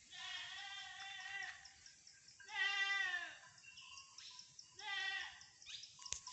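Goats bleating: three calls, the middle one the loudest, sliding down in pitch as it ends.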